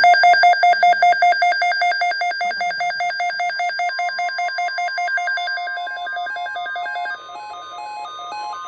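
Electronic emergency alert tones: a loud, rapid warble switching between two pitches. About halfway through, a steady higher tone joins it, and near the end the warble shifts to a different pattern of alternating tones.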